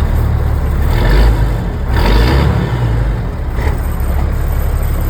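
The straight-piped multifuel six-cylinder diesel of an M35A2 deuce-and-a-half truck running loudly and revved up twice, about one and two seconds in, then settling back to idle.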